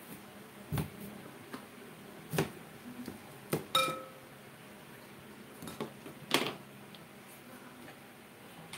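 Kitchen knife cutting through a raw potato and knocking on a plastic cutting board: about half a dozen sharp, irregular knocks, one just under four seconds in followed by a brief metallic ring.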